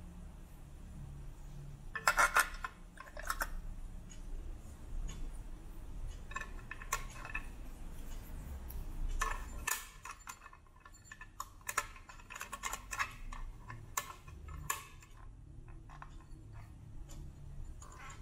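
An AA battery being fitted into a quartz clock's plastic battery compartment and the cover snapped shut: a series of sharp plastic clicks and rattles, the loudest about two seconds in, then more scattered handling clicks.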